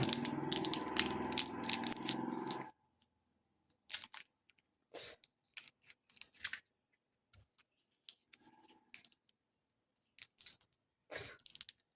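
M-seal epoxy putty packets being opened by hand: scattered short clicks and rustles of the packaging, possibly cut with scissors, with a steady low hiss in the first couple of seconds.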